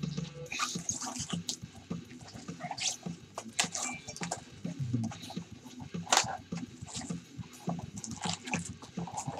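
Foil trading-card pack wrappers crinkling and cards being handled, a run of sharp, irregular crackles.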